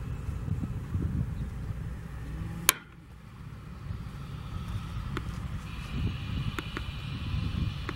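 Airbus A319 jet engines at taxi power: a steady low rumble with a thin whine that grows stronger in the second half. A single sharp click about two and a half seconds in, after which the sound dips briefly.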